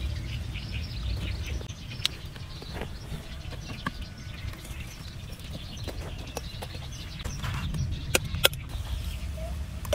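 Scattered light clicks of a cleaver and freshwater pearl mussel shells being handled, then two sharp clicks about half a second apart near the end as the cleaver strikes a shell, over a steady low rumble.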